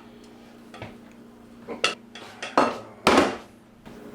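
Cutlery and dishes clinking at a meal: a few sharp clinks of metal on plates, with a louder, longer scrape a little after three seconds in.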